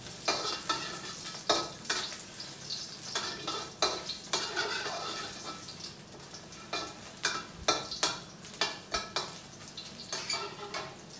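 Sliced shiitake mushrooms sizzling in oil in a steel wok, stir-fried with a metal spatula that scrapes and clinks against the wok at irregular intervals.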